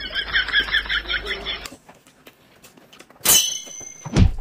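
Comic sound effect in an edited skit: a quick run of about eight high squeaky chirps lasting about two seconds, then a short swish and a couple of knocks near the end.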